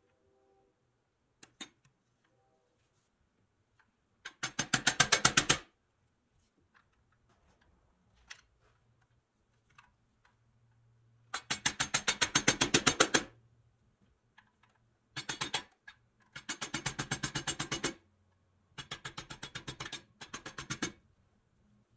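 Runs of rapid, evenly spaced mechanical clicking, about ten clicks a second, in six bursts of one to two seconds with pauses between, like a ratchet or clicker being worked.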